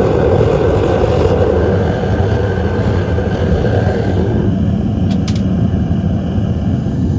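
Double-forged propane burner firing into a metal-melting furnace: a loud, steady flame noise. The brighter upper part of the noise drops away about four and a half seconds in, with a couple of faint clicks just after.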